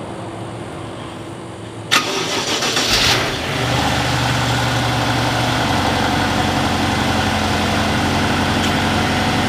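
BMW 750's twin-turbo V8 starting: about two seconds in the starter cranks briefly and the engine fires, runs at raised revs for a couple of seconds, then settles into a steady idle.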